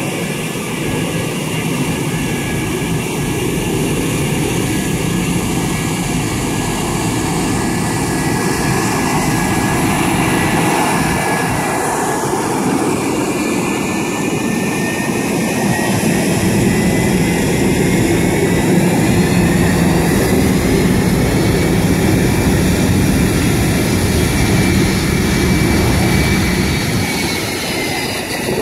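Cessna twin-turbofan business jet landing and rolling out along the runway: a steady engine rush with a high whine that slowly rises and then falls in pitch over the second half, where it is loudest.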